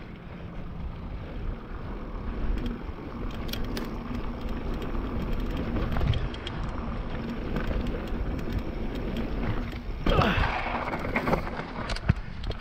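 Mountain bike rolling fast down a dirt and rock trail: tyres crunching over the ground, wind buffeting the microphone, and the bike rattling with sharp clicks over bumps. About ten seconds in there is a louder, brighter scraping burst.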